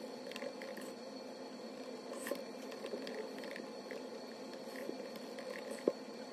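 Typing on a MacBook Pro laptop keyboard: soft, irregular key clicks, one a little louder near the end, over a steady background hum.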